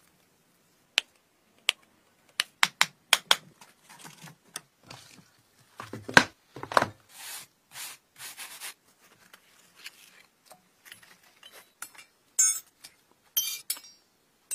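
Sharp metal clinks and taps, then a stiff wire brush scrubbing back and forth over a freshly cast metal blade lying in its open steel mould, with more scraping and clicks near the end.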